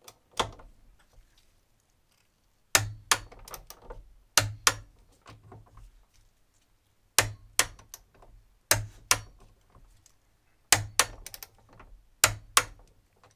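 Hand socket ratchet with a long handle clicking in about seven short bursts of two to four sharp clicks, one to two seconds apart, as it turns a suspension mounting nut.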